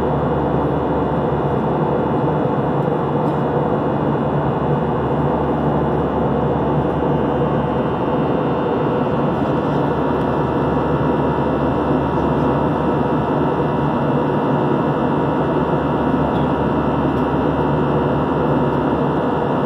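Steady cabin noise of an Airbus A320 in flight, heard from inside the passenger cabin: an even rush of engine drone and airflow with a faint steady hum, unchanging throughout.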